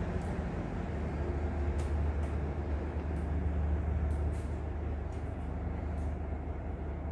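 Economy-class KAI passenger train rolling past on the next track: a steady low hum over a continuous rumble, with a few faint clicks.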